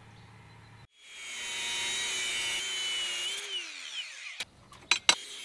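Angle grinder switched on about a second in, spinning up and grinding the forge-welded end of a steel wire rope with a steady whine. It is switched off past the middle and winds down with a falling pitch, followed by two sharp knocks.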